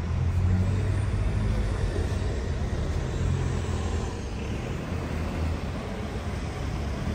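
Street traffic: a motor vehicle's engine running close by with a steady low hum over road noise.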